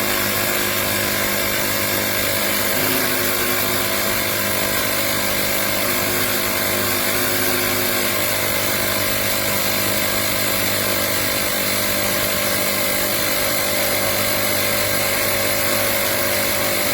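CYCPLUS battery-powered portable mini air compressor running steadily, a continuous motor-and-piston drone, as it pumps up toward its preset 2.5 bar automatic cut-off.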